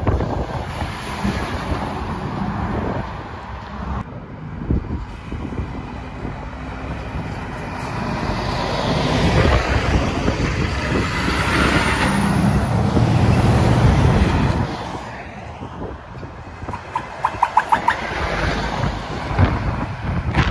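Articulated lorries driving past one after another, their diesel engines and tyres making a steady rumble that swells as one passes close about halfway through. A quick run of short, evenly spaced pulses comes about three-quarters of the way through.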